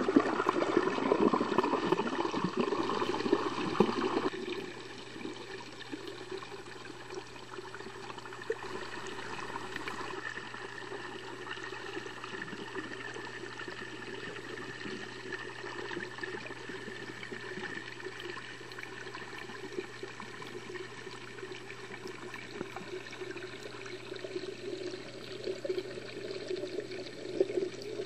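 Muffled pond water moving and sloshing around a submerged camera, a steady wash that is louder for the first four seconds and again near the end, over a faint low steady hum.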